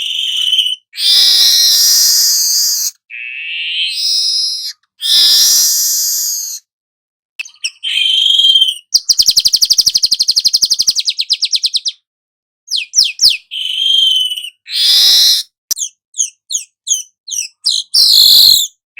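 Golden-headed weaver (manyar) singing: loud, high phrases of whistles and wheezy notes separated by brief silences. About halfway through comes a rapid, even, buzzy rattle, and near the end a quick run of sharp chips.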